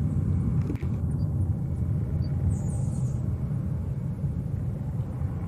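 Jet engine rumble of an Airbus A319-115 corporate jet's CFM56 turbofans climbing away after takeoff, low and steady, slowly fading as the aircraft recedes.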